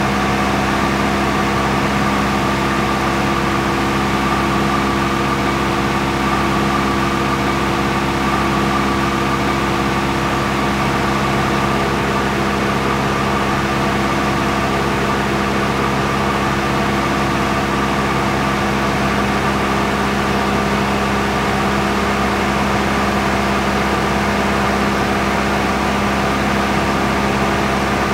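Light aircraft engine droning steadily at a constant pitch, with a low even hum and no changes in speed.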